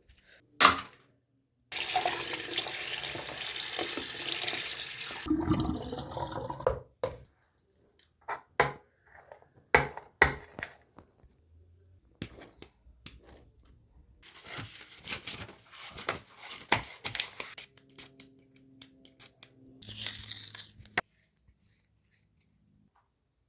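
Water tap running for a few seconds, then scattered clicks, knocks and rubbing as a wet phone is handled and wiped, with further stretches of hissing water-like noise.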